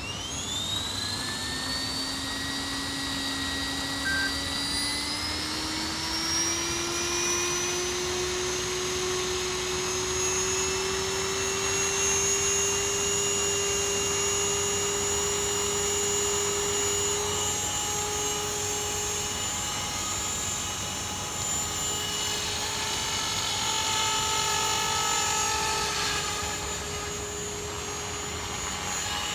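Thunder Tiger Mini Titan electric RC helicopter spooling up: a motor and rotor whine that rises in pitch over the first several seconds, then holds steady at flying speed.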